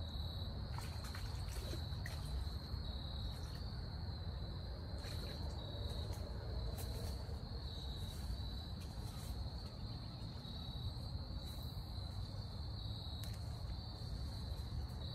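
Crickets trilling in a steady high-pitched chorus over a low background rumble, with a few faint clicks.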